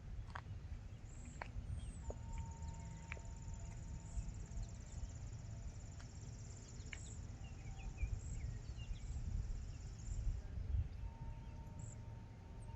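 Outdoor ambience: wind rumbling on the microphone under a high, fine trill that runs about nine seconds and cuts off about ten seconds in, with scattered short bird chirps in the middle.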